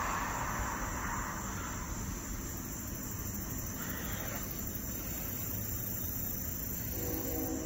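Night insects, crickets, chirping steadily at a high pitch, under a background of passing traffic that swells and fades over the first couple of seconds. A short low hum comes in near the end.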